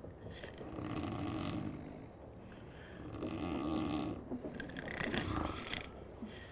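People snoring in their sleep: three long snores, each lasting a second or more, with short pauses between them.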